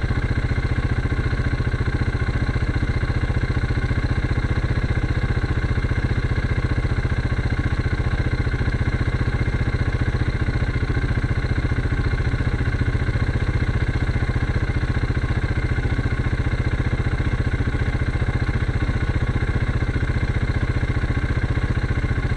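Quad ATV engine idling steadily, close by, with an even low pulse and no revving.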